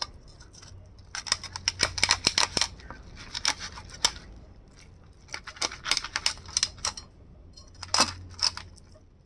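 Chinese cleaver cutting along the backbone of a wolf herring, crunching through the fine rib and pin bones. It comes as several bursts of rapid crisp clicks and scrapes.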